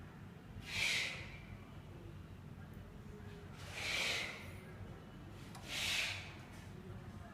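Three short hissing puffs of air, each about half a second long, about a second, four seconds and six seconds in, over a steady low background hum.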